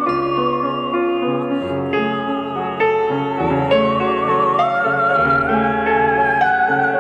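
Background music: a slow, wavering high melody line over piano chords, the melody stepping up in pitch about two-thirds of the way through.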